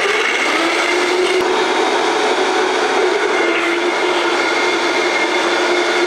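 Countertop blender running steadily at high speed with a constant whine, blending nuts, garlic and water into a smooth sauce.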